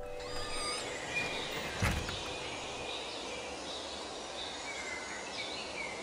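Steady background ambience of even noise, dotted with many faint short high chirps, and one dull thump about two seconds in; a held music chord dies away at the very start.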